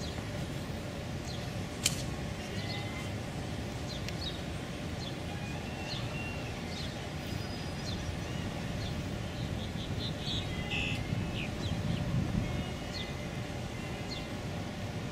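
Waterfront ambience: a steady low rumble with small birds chirping on and off, and one sharp click about two seconds in.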